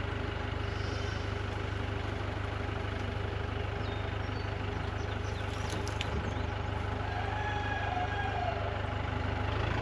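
An engine running steadily at idle, with an even low hum and no change in speed.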